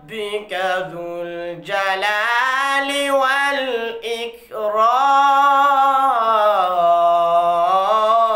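A boy's voice reciting the Quran in the melodic tajweed style, drawing out long ornamented notes, with a short breath about halfway through and then one long held phrase.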